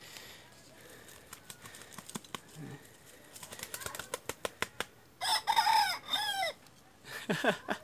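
A bantam rooster crows once, about five seconds in, for just over a second. Before it there is light ticking and rustling, and near the end there is a shorter call that falls in pitch.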